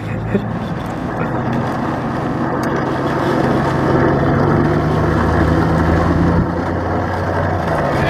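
Engine of a vehicle towing a skateboarder on a rope, running steadily with road noise and slowly getting louder as it picks up speed.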